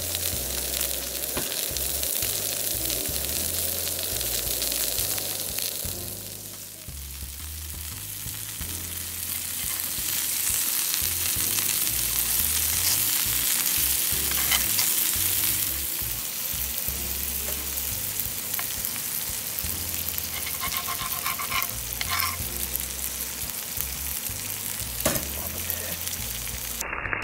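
Meat frying on a hot steak plate, a steady sizzle that fades a little about six seconds in and comes back louder from about ten seconds, with a few small clicks.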